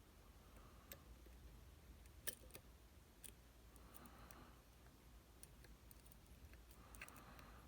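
Faint, scattered clicks and light scraping of a pick working inside a Goal D9 nine-pin dimple lock held under tension, as the side pins are preset; the sharpest click comes about two and a half seconds in.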